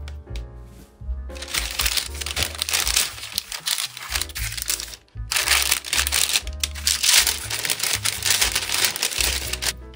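Parchment paper crinkling and rustling as hands handle it on a baking tray, with a short break about five seconds in, over background music.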